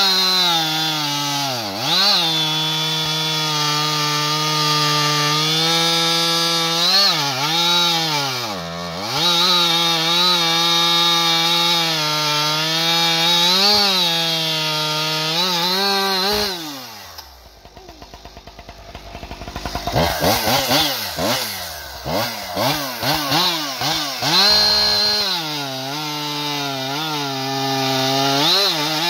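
Husqvarna 585 two-stroke chainsaw, fitted with an aftermarket expansion-chamber pipe and a 28-inch bar, running at full throttle through a big round of frozen wood, its pitch dipping and recovering as the chain loads up. About seventeen seconds in it drops briefly to a low idle, then revs back up and carries on cutting, bogging down more often.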